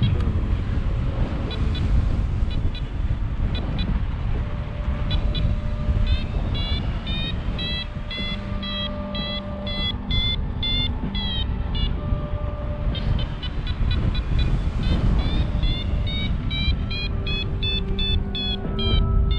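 A paragliding variometer beeping in quick runs of short tones that step up in pitch at times, the signal of the glider climbing in rising air. Under it, steady wind rushes across the microphone in flight.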